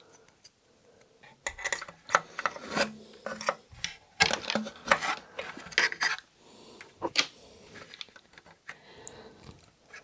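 Hands fumbling inside a NAS's metal drive cage while fitting an M.2 NVMe SSD into its hard-to-reach slot: irregular scraping, rubbing and small clicks of metal and plastic, busiest in the first two thirds and fainter near the end.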